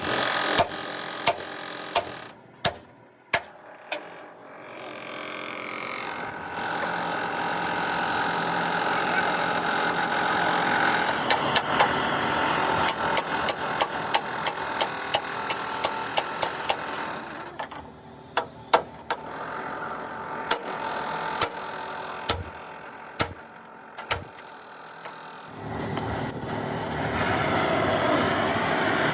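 Sharp knocks at irregular intervals, dozens of them, over a steady mechanical drone that rises and falls twice.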